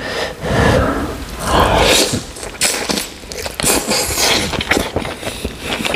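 Close-up eating sounds: biting into and tearing meat from a spicy curry-coated chicken leg and chewing it, in irregular bursts.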